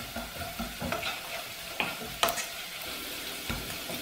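Chopped onion, tomato, ginger and garlic sizzling in oil in a nonstick pot as a spatula stirs them, with a handful of sharp scrapes of the spatula against the pan. The loudest scrape comes a little past halfway.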